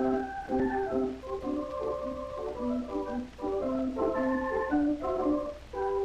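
Background music: a lively melody of short, quickly changing notes.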